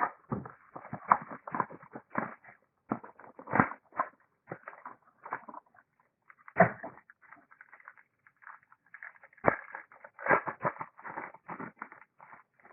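Trading cards and their plastic sleeves and holders being handled: an irregular run of rustles, taps and sharp clicks, with a few louder knocks.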